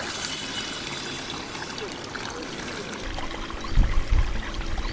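River water trickling and lapping at the bank. About three seconds in, a low rumble and a few dull thumps join it.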